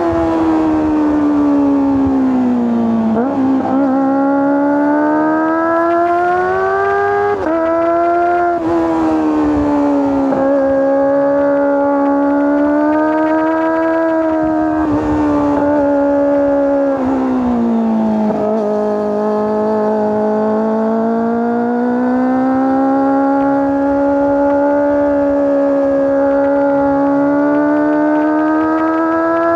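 Kawasaki ZX-25R's 249 cc inline-four engine and exhaust running at high revs while riding, its high-pitched note falling and rising with the throttle. Quick breaks in the note mark several gear changes.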